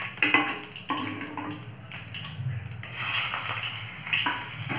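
Mustard and cumin seeds frying in hot oil in a pan, a steady sizzle that grows stronger about halfway through. Two knocks of a spoon or ladle against the cookware come near the start.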